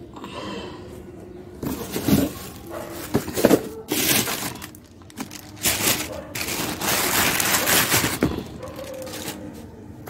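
Plastic bags rustling and crinkling in irregular bursts, the longest a couple of seconds past the middle, with a few light knocks of shoes set down on concrete.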